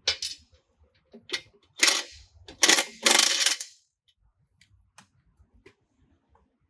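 Ratchet with an 18mm socket clicking in short bursts and metal tool clinks as the log splitter's guard bolts are undone; the loudest bursts fall in the first four seconds, then only faint scattered clicks.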